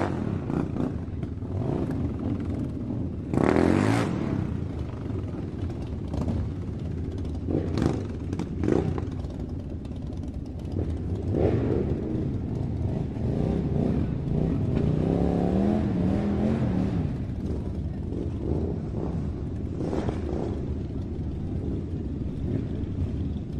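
Battery-powered toy RC rock crawler driving over dirt and dry leaves: its electric drive motors and gearbox run continuously, their pitch rising and falling as it speeds up and slows, with scattered clattering as the wheels bump over the ground.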